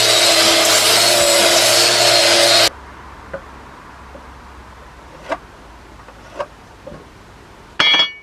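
A power tool running steadily against wood, cut off abruptly about two and a half seconds in. After that come a few faint taps and, near the end, a short sharp knock with a brief ring.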